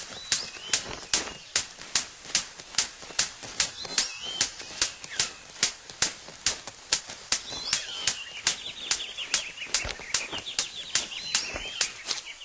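Male superb bird of paradise courtship display: a steady run of sharp clicks, about three a second, with a few short chirps early on and a long string of rapid, slightly falling notes in the second half.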